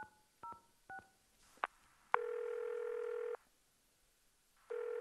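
Telephone keypad dialing tones: three quick two-tone beeps. A click follows, then two long steady line tones of about a second each with a pause between, as the call goes through to a number that does not exist.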